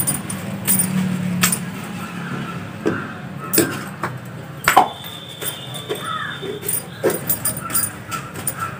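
A wet cloth wiped and dabbed over a concrete floor, spreading a mud-and-water wash, with scattered soft slaps, scuffs and small clicks as it is worked and dipped in a plastic bucket.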